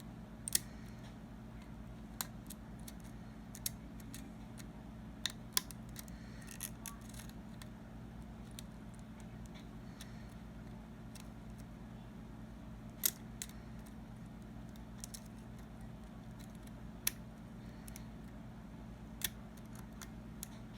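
Lock pick and tension wrench working the pins of a padlock: scattered small metallic clicks and ticks, a handful of them sharper, spaced irregularly over a steady low hum.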